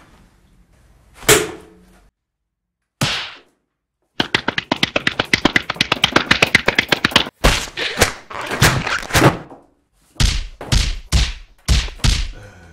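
Foley blows struck on an object to stand in for a person being beaten: two single thuds, then a fast flurry of strikes, then more hits in irregular clusters.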